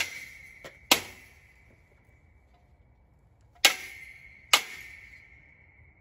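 Four hard hammer blows on steel, in two pairs about a second apart, each leaving the metal ringing with one high steady tone that slowly dies away. The blows are knocking a stuck part loose.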